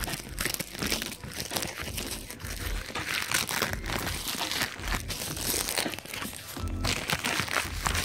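Packaging wrap crinkling and rustling, irregular and continuous, as a shipped parcel is handled and unwrapped.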